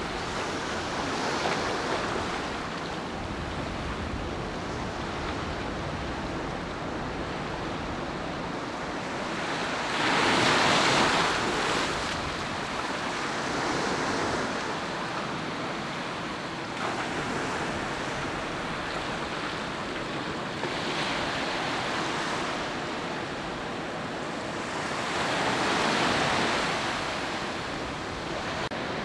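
Pacific Ocean surf washing onto a sandy beach: a continuous rush of breaking waves, swelling louder as a bigger wave breaks about ten seconds in and again near the end.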